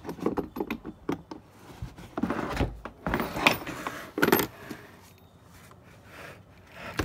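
A moulded plastic hard carrying case being unlatched and opened: a quick run of clicks and knocks, then louder scraping and knocking from the plastic lid and shell as it is lifted open, loudest about three and a half and four and a half seconds in.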